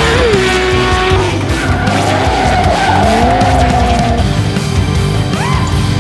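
Crosskart engine revving hard as the kart slides past, its pitch dropping sharply just after the start and climbing again later, with tyres squealing and skidding on the asphalt. Music plays underneath.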